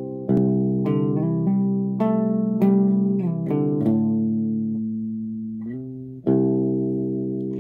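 Electric guitar played through a Magpie Pedals Fruits effects pedal: a quick run of plucked notes for about four seconds, then one note left to ring and fade, and a fresh strike a little after six seconds in.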